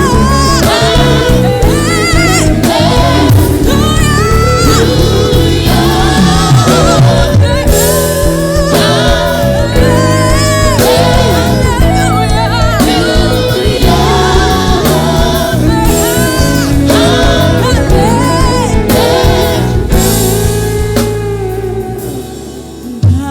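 Gospel song with singers over instrumental accompaniment, fading out near the end.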